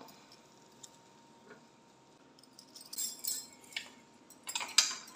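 Light metallic clicks and clinks of a round chrome wire grill rack being lifted out of a convection microwave oven and set down. The clinks come mostly in the second half, after a couple of seconds of near quiet.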